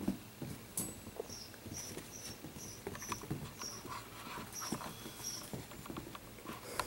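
Italian greyhound puppy romping on carpet with a plush toy: soft irregular paw thumps and scuffles. Faint, short high-pitched chirps repeat two or three times a second throughout.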